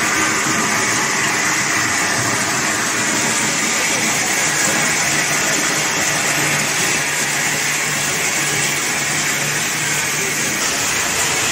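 Sacha inchi shelling machine and its motor-driven inclined belt conveyor running with nuts in the line: a steady, dense mechanical noise with a low hum underneath.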